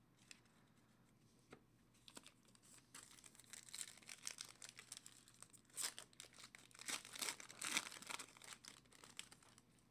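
Foil trading-card pack being torn open and crinkled by hand: a few faint ticks at first, then about six seconds of crackling and tearing, loudest in the second half.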